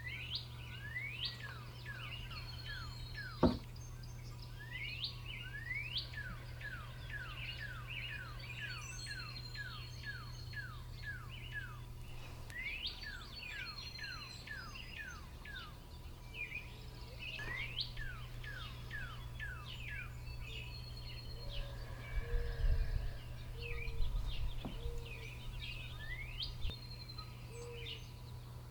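Songbirds singing: one repeats runs of quick, falling whistled notes while other birds chirp around it, over a steady low hum. A single sharp click comes a few seconds in.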